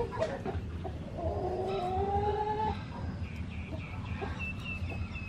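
Backyard animal calls: a long, slightly rising call at about a second in, followed by a run of short, high repeated chirps.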